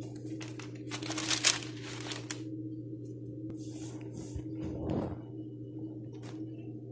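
Crinkly rustling handling noises over a steady low hum, the loudest rustles about a second in.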